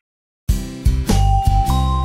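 Silence for about half a second, then the instrumental intro of a children's nursery-rhyme song starts abruptly, with a steady beat and a held high note.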